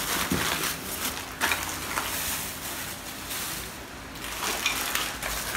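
Plastic bubble wrap and bagging crinkling and a cardboard box rustling as office-chair parts are handled and unpacked, coming and going with a few sharper crackles.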